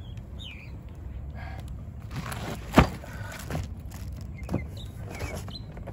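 Knocks from a large cardboard pressure-washer box being handled on pavement: one sharp knock about three seconds in and a couple of softer ones. Birds chirp now and then in the background.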